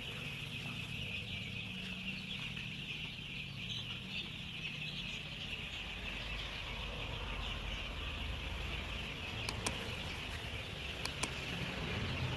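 Many Kaveri chicks peeping together in a steady chorus, with a few sharp clicks in the last few seconds.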